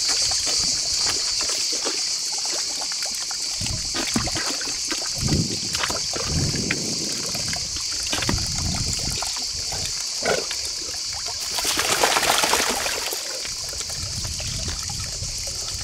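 Spring water trickling from a spout into a stone trough, with a Newfoundland puppy lying in the shallow water and sloshing it now and then as it shifts, over a steady high-pitched insect chorus.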